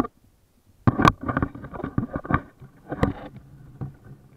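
Irregular knocks and rattles with splashy noise from a sailing kayak under way, starting suddenly about a second in.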